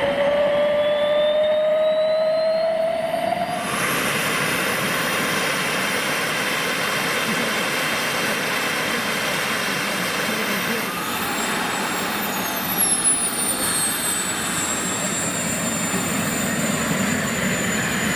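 Model jet turbine of an RC jet starting up. A starter whine rises slowly, then about three and a half seconds in the turbine lights and a steady rushing noise takes over. Near eleven seconds a high whine climbs, falls back and settles into a steady running whine.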